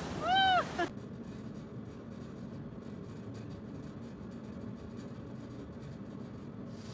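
A brief high-pitched cry that rises and falls in pitch in the first second, then faint, steady background hiss from a security-camera recording.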